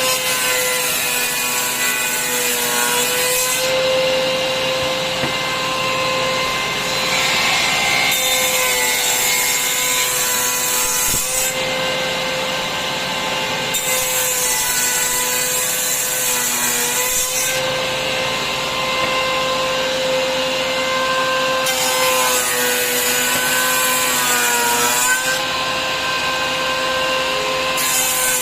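Table router's motor running at a steady high whine while wood is fed past the bit. The cutting noise swells in four passes of three to four seconds each, with another starting near the end.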